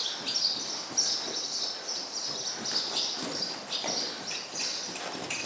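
Small birds chirping steadily, with the soft, muffled hoofbeats of a pony trotting on a sand arena surface.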